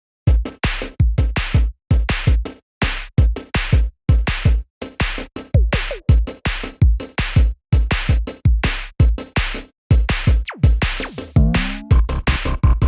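Electronic background music built on a punchy drum-machine beat with deep bass kicks and brief stops between phrases. About ten seconds in, a sliding synth sweep leads into a held tone.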